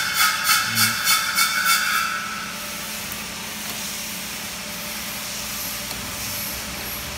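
Ultrasonic cutting machine running: a high-pitched whine pulsing about three times a second, stopping about two seconds in and leaving a steady machine hiss.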